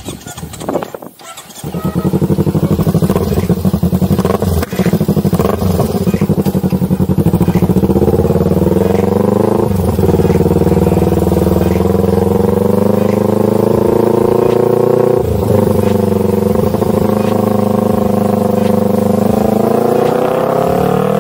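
Kawasaki Z250 with an aftermarket SC Project exhaust, ridden under acceleration. The exhaust note comes in strongly about a second and a half in and climbs in pitch. It drops back briefly about ten seconds in and again about fifteen seconds in, then climbs again.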